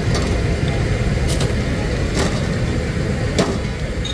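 Busy street-food grill stall: a steady low rumble of street and kitchen noise, with several sharp clacks about a second apart.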